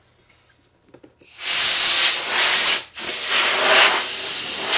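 Compressed air hissing out of a nozzle in two long blasts, starting about a second in with a brief break between them. It is blowing loose sanding dust off a plastic model seam before putty goes on.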